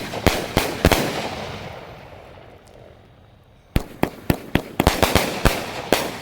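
A 500-gram, 30-shot fireworks cake repeater firing: a quick run of four sharp bangs, then a fading rush of sound and a lull of nearly three seconds, then another rapid run of about eight bangs.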